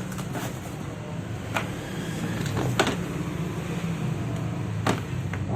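Steady low background hum with a few sharp clicks and knocks, the loudest nearly three seconds in: handling of the packaging and case while unboxing a cordless drill set.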